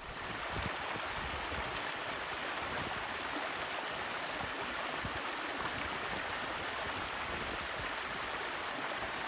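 Steady rushing water, an even hiss with no change in level.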